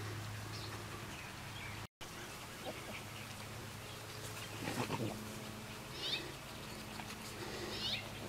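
A bird repeats a short, high call that falls in pitch, twice in the second half, over a low steady hum. There is a brief rustle about halfway through.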